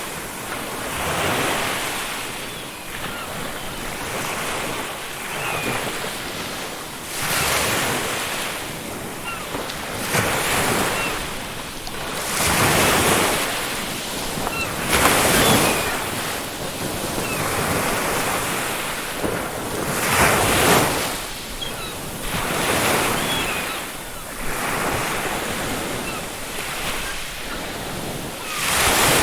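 Ocean waves breaking on a beach, swelling and falling back in repeated surges every few seconds.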